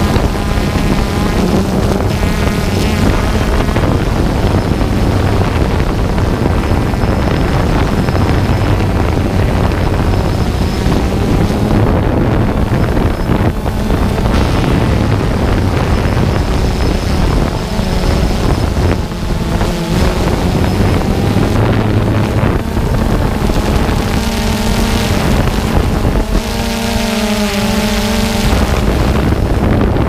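DJI Phantom 2 quadcopter's motors and propellers buzzing steadily, heard from the camera on board, with wind on the microphone. In the second half the motor pitch wavers several times as the drone changes speed.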